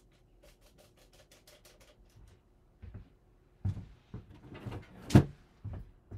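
Faint quick tapping at first, then scattered knocks and thumps of objects being handled in a small room, the loudest a sharp knock about five seconds in.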